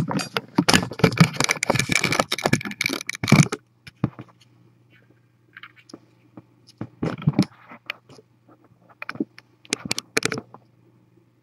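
Close scraping, rustling and clicking, dense and loud for the first three and a half seconds, then scattered clicks and knocks.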